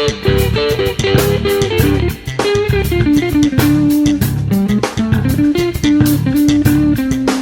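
Background music: a guitar playing a stepping melody over bass guitar and a steady drum beat.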